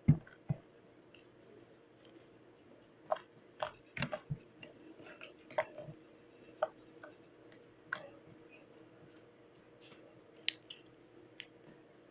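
Slime being squeezed and poked by hand, giving scattered sticky clicks and pops, with a loud low thump at the very start and a quick run of pops a few seconds in.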